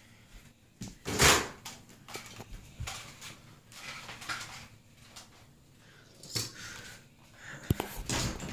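Irregular rustling and bumping as a handheld camera is moved and rubbed against a cotton T-shirt. The loudest scrape comes about a second in, and a couple of sharp clicks come near the end.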